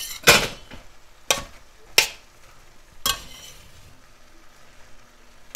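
Metal spatula scraping and knocking against a stainless steel wok as stir-fry vegetables are tossed: four sharp strokes about a second apart, the first the loudest, over a light sizzle of the vegetables frying.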